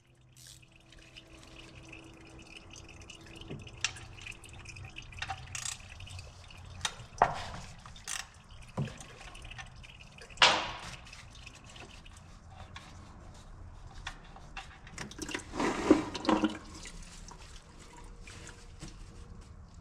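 Used engine oil draining and dripping from a Honda Talon's drain holes into a drain pan, with scattered small clicks and a few louder knocks of metal parts being handled.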